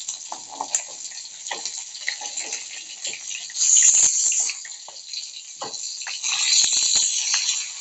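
Rohu fish pieces sizzling in hot oil in a karahi, with a metal spatula clicking and scraping against the pan as it turns them. The sizzle surges louder about four seconds in and again near the end as pieces are flipped into the oil.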